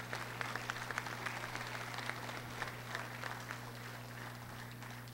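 Audience applauding in light, scattered claps that thin out about three and a half seconds in.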